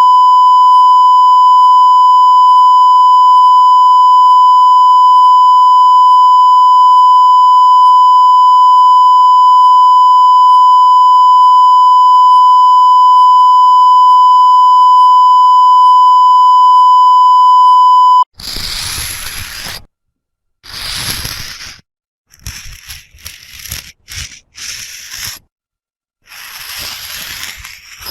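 A loud, steady electronic beep tone held for about eighteen seconds, cutting off suddenly. It is followed by a string of short, harsh, hissy scraping sounds, some a second or more long, with silent gaps between them.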